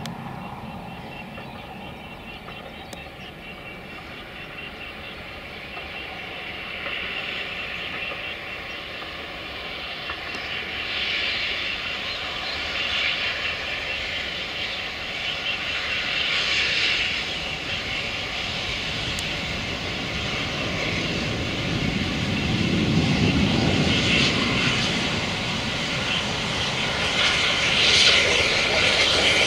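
GWR tender steam locomotive working a passenger train as it approaches. Its exhaust and running grow steadily louder, loudest near the end.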